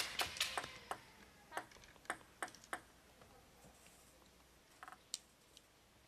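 Scattered handclaps from the arena crowd dying away after a point: a quick run of faint sharp claps in the first second, a few isolated ones over the next two seconds, and one or two more near the end.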